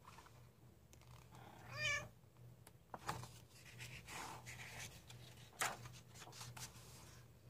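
A domestic cat meows once, a short call that bends in pitch about two seconds in. Later a page of a paperback coloring book is turned with a crisp paper rustle.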